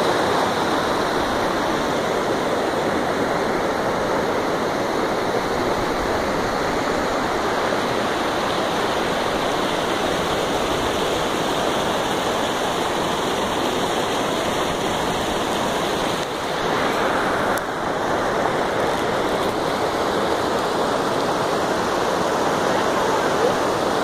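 Glacier-fed mountain stream cascading over boulders: a steady, fairly loud rush of white water.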